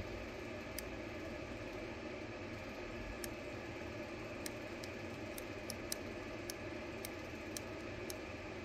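Steady background hiss and hum, with about a dozen faint, sharp clicks from a NanoVNA antenna analyzer's jog switch as its marker is stepped down the SWR sweep toward the lowest point of the dip.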